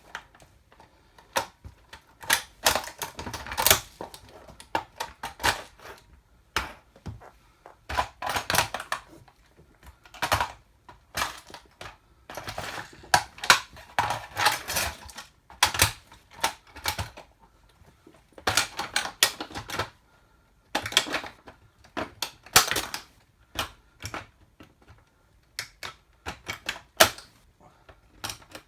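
A toy car cracking and crunching under platform high heels, in irregular clusters of sharp clicks and snaps with short pauses between them.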